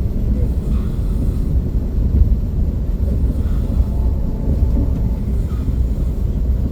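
Steady low rumble inside the passenger cabin of a KTX high-speed train in motion.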